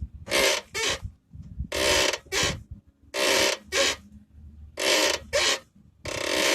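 W203 Mercedes-Benz front suspension squeaking over and over: a longer squeak then a shorter one, about every second and a half, five times. Typical of worn front sway bar bushings.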